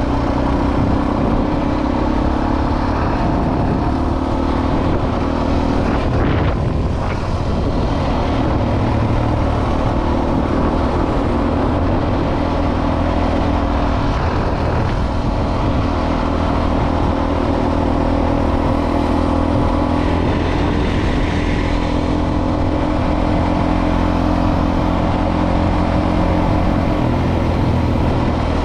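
Motorcycle engine running steadily on the move, its hum held at a fairly even pitch over a steady rushing noise.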